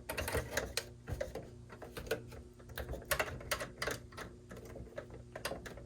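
Irregular small clicks and taps of a power cord plug being handled and pushed into the socket of a NAS's replacement power supply, over a faint steady hum.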